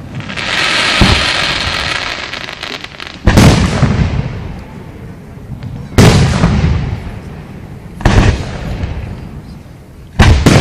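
Aerial fireworks shells bursting: a hiss for the first three seconds, then four loud booms about every two to three seconds, each dying away over a second or two.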